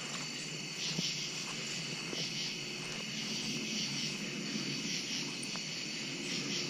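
Night-time chorus of crickets and other insects: a steady, high trilling with a gentle pulse, with a few faint knocks under it.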